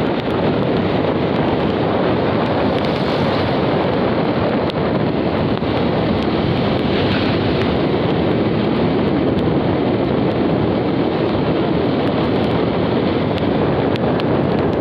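Wind buffeting the microphone of a moving vehicle, mixed with road noise: a steady rush of noise with no pitch.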